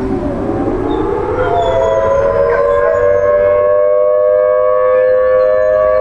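Thunderbolt 1000T tornado warning siren winding up from a low pitch over about two seconds, then holding a steady, loud chord of tones.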